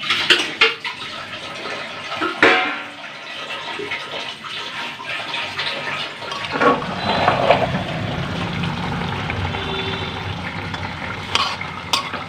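Tap water running into a kitchen sink while steel dishes and utensils clatter as they are handled and washed, with a rushing, steadier flow from about halfway through.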